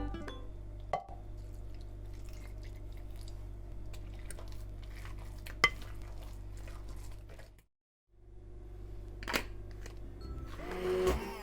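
A few sharp clinks and taps of kitchen utensils against a bowl over a steady low hum. Music comes back near the end.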